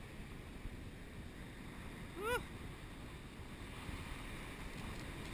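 Surf washing and foaming over a rocky reef, with wind rumbling on the microphone. A short vocal sound, like a brief grunt or sigh, about two seconds in.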